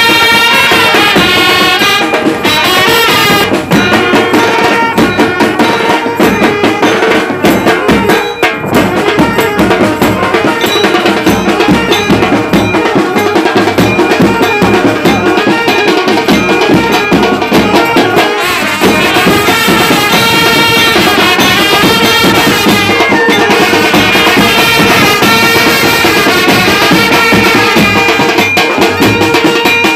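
Indian brass band playing loudly: trumpets carry a melody over a driving beat of bass drums and snare drums.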